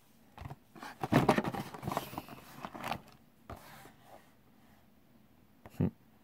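A small cardboard box being picked up off a fabric mat and handled, with irregular scraping and rubbing of cardboard against hands and surface, loudest in the first few seconds, and a short knock near the end.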